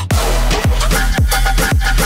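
Electronic dance music with deep bass and a pounding kick drum a little under twice a second; it cuts out briefly at the start and the beat comes straight back in.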